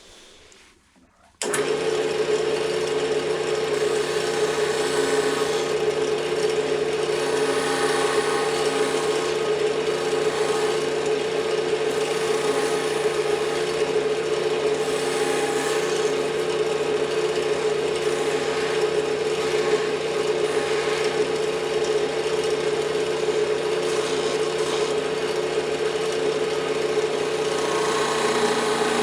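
Wood lathe switched on about a second and a half in, then running steadily with a constant hum, while a turning tool scrapes at the spinning fatwood.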